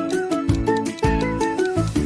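Upbeat background music with plucked notes over a steady beat and a bass line.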